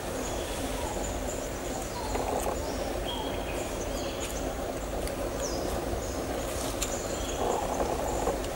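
Forest ambience: a steady low hiss and rumble with scattered short, high bird chirps and whistles, one a falling whistle about five and a half seconds in.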